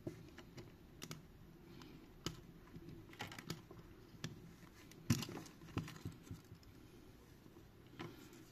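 Scattered small clicks and taps of fingers and a tool working inside an opened Xiaomi smartphone, lifting the tape and foil over the board and unplugging the battery connector. The sharpest click comes about five seconds in.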